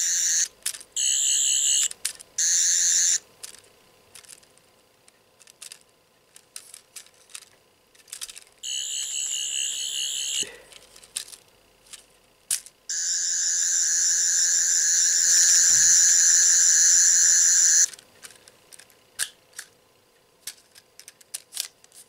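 Eleventh Doctor sonic screwdriver toy playing its high, warbling electronic sonic sound from its small speaker in bursts: three short ones at the start, one about a second and a half long near the middle, and a long one of about five seconds in the second half. Small clicks come between the bursts.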